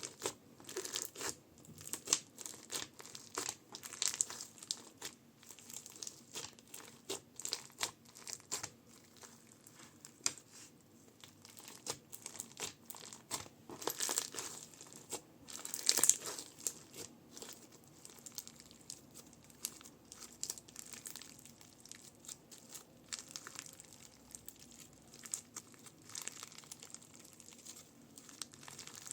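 Crunchy slime being pressed and squeezed, giving dense, irregular crackles and pops, loudest around the middle.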